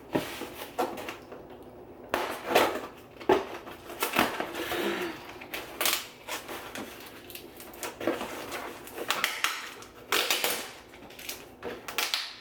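Cardboard shipping box being opened and unpacked by hand: irregular crinkling and rustling of packing material, with scattered knocks and clatter as items are handled.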